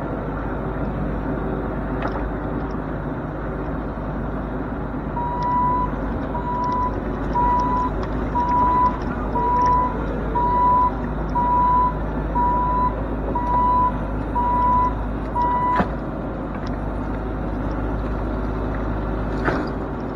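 Bobcat E42 mini excavator's diesel engine running steadily while the bucket digs. From about five seconds in, a warning beeper sounds about once a second, around eleven times, then stops with a sharp knock. Another knock comes near the end.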